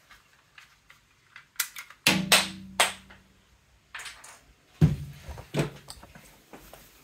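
Spring-loaded missile launcher on a vintage Kenner M.A.S.K. Hurricane toy car firing with a sharp plastic snap and a brief ringing twang about two seconds in, then a few more clicks and, about five seconds in, some low knocks.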